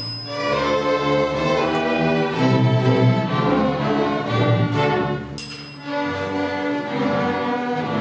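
Student string orchestra of violins, cellos and double basses playing a piece with sustained, moving notes, easing briefly about five and a half seconds in before carrying on.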